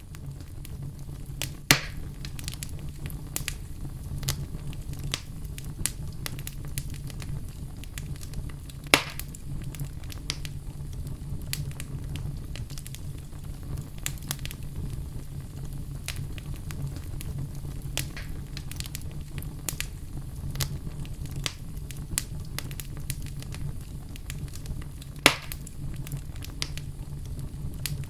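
Fire burning in a fireplace: a steady low rumble of flames with constant small crackles, and three louder pops about two seconds in, about nine seconds in and near the end.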